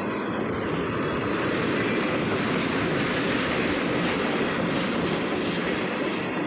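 Freight train of tank cars rolling past close by: a steady noise of steel wheels running on the rails, a little louder in the middle.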